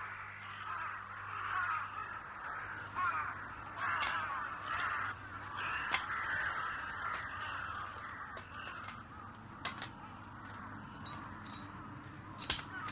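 A flock of crows cawing, many calls overlapping, thinning out in the second half, with a few sharp clicks near the end.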